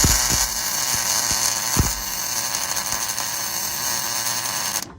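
A welder's arc crackling steadily for about five seconds as a weld is laid on steel roll cage tubing, with a couple of sharp pops, starting and cutting off abruptly when the trigger is pressed and released.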